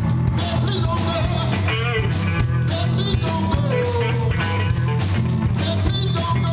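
A blues-rock band playing live, with electric guitar, bass guitar, drum kit and keyboards. The bass line repeats steadily underneath while wavering lead lines carry on above it.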